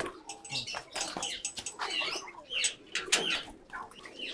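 Pigeons flapping their wings and scuffling while being handled, with short high squeaky chirps in between, in a quick irregular patter.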